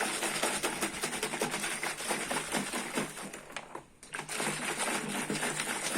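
Water splashing as a home-made sound effect: a dense run of rapid, irregular splashes and crackles, with a short break about four seconds in.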